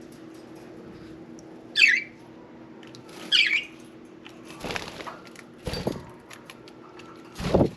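Budgerigar giving two short, sharp squawks, then three brief bursts of wing-flapping.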